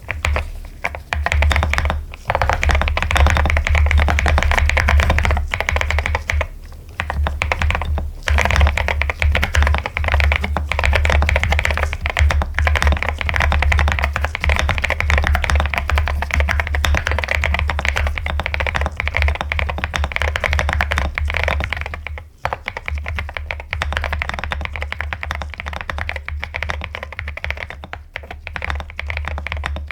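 Mechanical keyboard being typed on quickly and continuously, a dense run of keystrokes with a few short pauses, one of them about two-thirds through.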